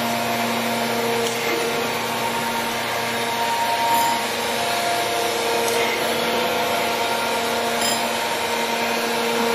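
Gallmeyer & Livingston Grand Rapids 660 surface grinder running: a steady hum with several held tones over an even hiss.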